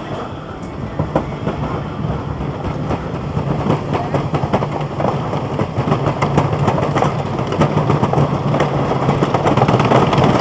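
Thunder Run wooden roller coaster train rolling on its track, with a rapid clatter of clacks over a rumble and a steady low hum, growing louder.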